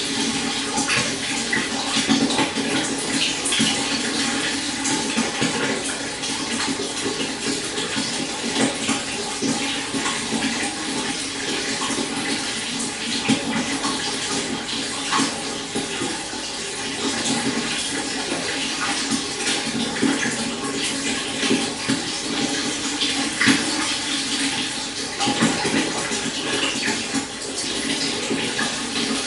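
Shallow stream flowing steadily, with a continuous splashing and gurgling rush of water over stones.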